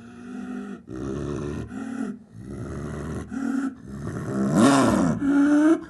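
Cartoon animal vocal effects: a run of short roaring, growling calls with brief gaps between them. Near the end comes one louder call that swoops up in pitch and falls back.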